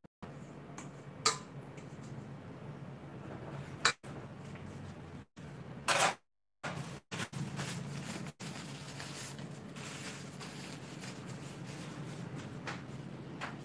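Stainless steel mixing bowls knocking: a few sharp metallic clinks and, about six seconds in, a louder clatter as the bowl is set down on a steel worktop. A steady low hum runs underneath, and the sound cuts out briefly several times.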